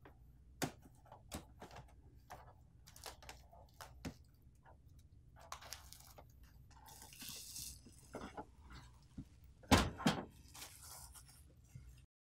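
Clear plastic protective wrap being peeled off a printer's casing: intermittent crinkling and crackling with scattered small clicks, loudest about ten seconds in.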